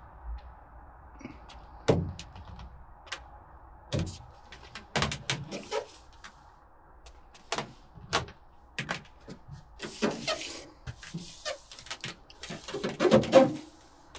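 Irregular knocks, taps and crinkling as a sheet of foil-backed butyl sound-deadening mat is handled and pressed down onto a truck's sheet-metal cab floor, with the loudest thumps about two and four seconds in and a cluster near the end.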